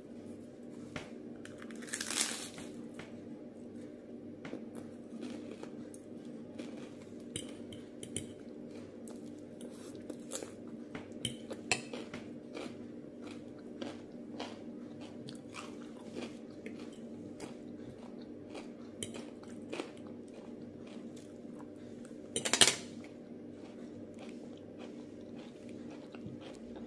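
Crisp puffed rice cake topped with avocado being bitten and chewed: two loud crunching bites, about two seconds in and near the end, with smaller crunchy chewing sounds between them over a steady low hum.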